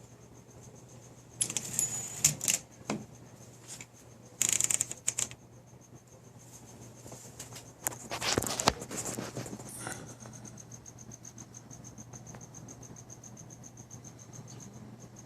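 Olympia SM3 manual typewriter's mechanism being worked: several short bursts of metallic clacking and rattling separated by quiet gaps.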